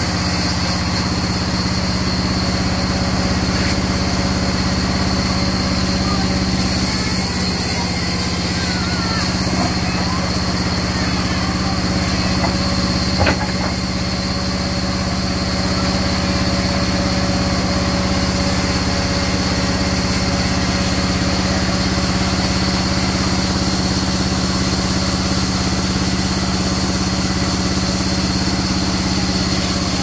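Sawmill vertical band saw running with a steady machine drone while mahogany timber is fed through the blade. A single sharp knock sounds a little before halfway.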